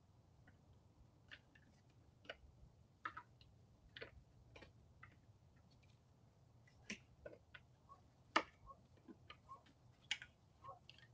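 White-tailed deer feeding at food bowls: faint, irregular clicks and crunches over a steady low hum, with one sharper click a little past the middle.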